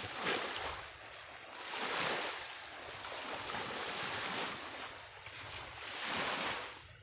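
Small waves breaking and washing up on a sandy shore, swelling and fading about four times.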